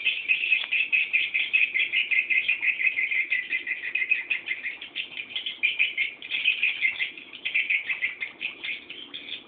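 Swiftlet chicks in the nest giving rapid, dense chittering begging calls, a high continuous twittering that eases off slightly near the end.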